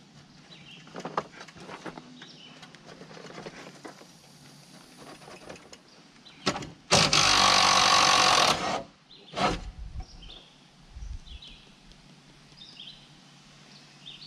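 A power tool spins a bumper bolt out, running steadily for nearly two seconds about seven seconds in, then a short second burst. Light clinks of handling, with birds chirping in the background.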